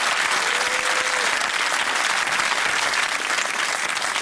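Studio audience applauding: dense, steady clapping at an even level.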